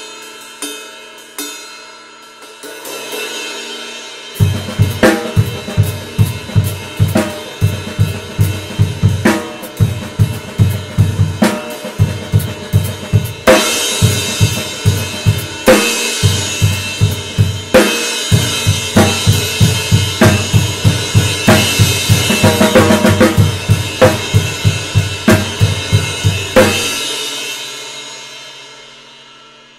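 Krest Power Crash Fusion 19-inch crash cymbal played on a drum kit. A few ringing crashes open it, then from about four seconds in a steady groove of bass drum and snare with the crash struck again and again. Near the end the playing stops and the cymbal rings out and fades.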